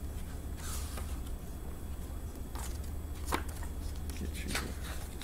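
Picture book being opened and its pages handled: a handful of soft paper rustles and taps over a steady low room hum.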